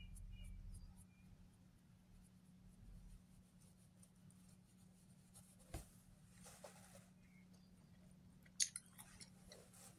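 Near silence: room tone with a faint steady hum and a few soft rubbing and handling sounds, with one sharp click about eight and a half seconds in.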